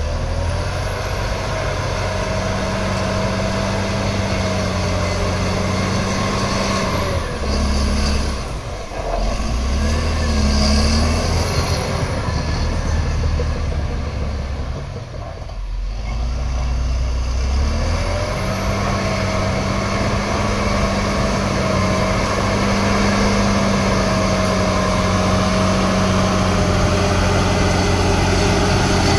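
Crawler bulldozer's diesel engine running under load as it pushes a mound of soil with its blade, with a high whine over the steady engine note. The sound dips and shifts twice, about eight and sixteen seconds in.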